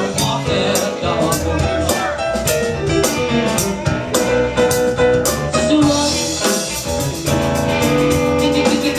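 Band playing a rhythm-and-blues song with guitar over a drum kit keeping a steady beat.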